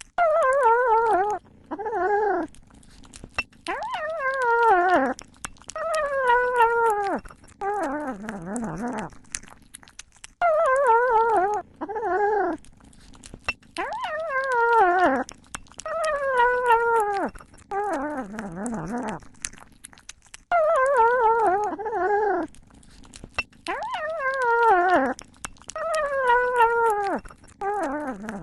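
A cat making a long run of drawn-out, wavering meows, each falling in pitch and lasting about a second, one every one and a half to two seconds.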